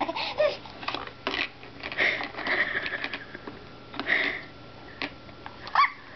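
Hard plastic balls clicking and knocking against a plastic toy bowl as a baby rummages in it, with a few short breathy sounds and a brief high rising squeal from the baby near the end.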